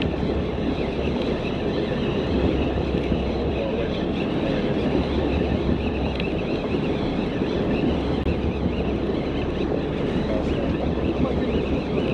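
Steady rumbling wind noise on the microphone with water moving along the side of a fishing boat.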